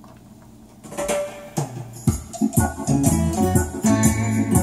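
A vinyl LP playing on a Technics SL-Q303 direct-drive turntable. After about a second of quiet lead-in groove, the record's music starts, and a full band with a steady beat comes in about two seconds in.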